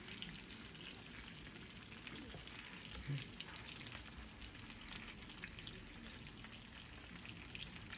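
Chicken pieces frying in oil in a skillet: a steady, faint sizzle with small crackles as the browned pieces are turned with a fork. One brief low bump comes about three seconds in.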